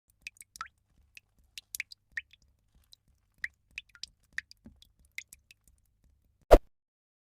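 Hot oil spitting around frying fish: scattered sharp pops and crackles, irregular and a few per second. One much louder thump comes near the end.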